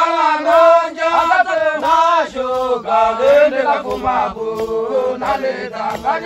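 A group of Hadza voices singing a chant together, in sung phrases that rise and fall. Several voices overlap in the second half.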